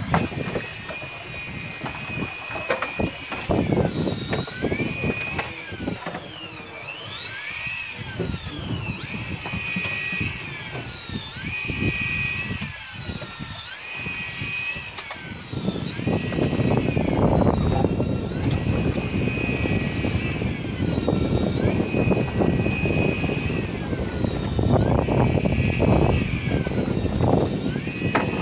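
Electric fishing reel's motor whining as it winds line, its pitch dipping and climbing back about every two seconds. A louder low rush joins about halfway through.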